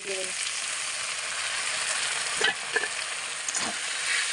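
Tomatoes and onion masala sizzling in hot oil in a metal kadai, the hiss jumping up at the start as a splash of water hits the pan, with a few short clicks of a steel spoon scraping against the pan.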